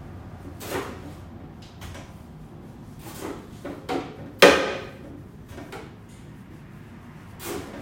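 Several short knocks and scrapes of objects being handled. The loudest is a sharp clack about four and a half seconds in.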